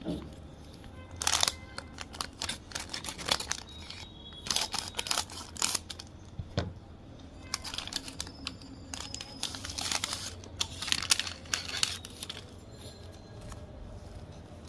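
Handling noises: irregular clicks, knocks and rustling, with a few louder clusters about 1.5, 4.5 and 10 seconds in.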